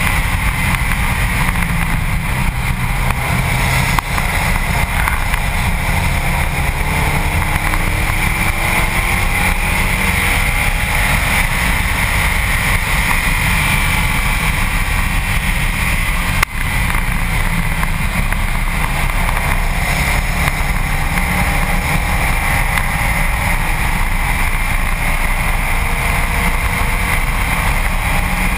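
Steady wind and tyre-on-asphalt rush at a car's front bumper at track speed, with the Subaru WRX STi's turbocharged flat-four faint underneath, its note rising and falling with the throttle. One sharp knock about halfway through.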